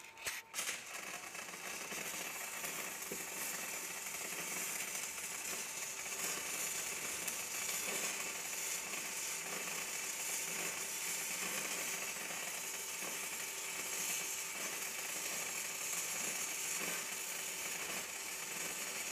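E6010 stick-welding arc (3/32-inch rod at 80 A DCEP) burning on mild steel plate. It strikes about half a second in with a few sharp crackles, then runs as a steady, even crackle. The arc is held very short, the tightest arc the welder can hold, aiming for about 27 V.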